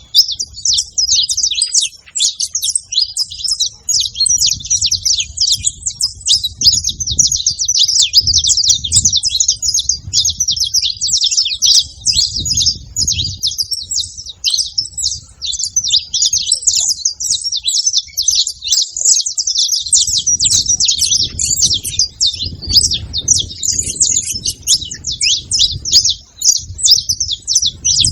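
Saffron finch chirping and singing without a break, a rapid run of short, high notes.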